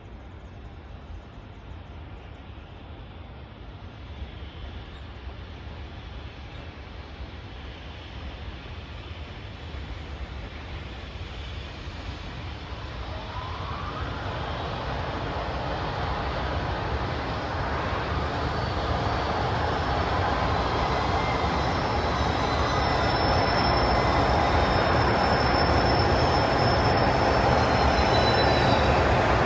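Electric freight train approaching on the rails. Its rumble and wheel noise grow steadily louder, and a faint high wheel squeal comes in near the end.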